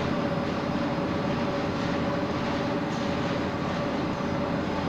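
Steady background machine noise, a constant rumble with a held mid-pitched hum through it.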